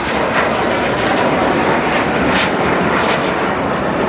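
A fixed-wing display aircraft's engine noise during a slow pass overhead: a loud, steady rushing sound.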